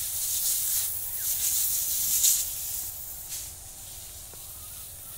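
Hissing jet of pesticide from a high-speed spray pump's lance, driven up into a mango tree's foliage. The hiss comes in surging waves, is loudest about two seconds in, and falls away after about three and a half seconds.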